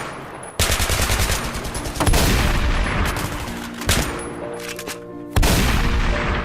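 Bursts of rapid gunfire: a volley about half a second in, a heavier one at about two seconds, a single shot near four seconds and another volley near the end.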